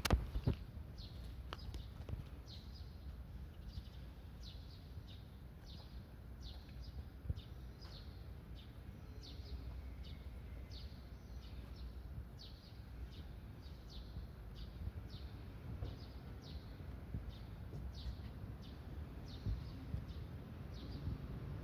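A bird chirping over and over, short high falling chirps about two a second, over a low background rumble. A few sharp knocks sound just after the start.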